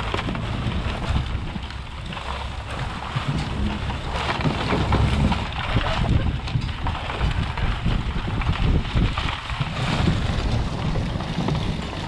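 A vehicle driving across dry ground towing a drag harrow made of wooden pallets and chain-link fence: a steady low rumble with the drag scraping through the dirt, and wind buffeting the microphone.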